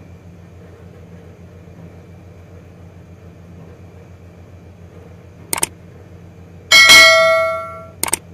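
Subscribe-button animation sound effects: a sharp double mouse click, then a loud bright bell ding that fades over about a second, then another double click, over a steady low hum.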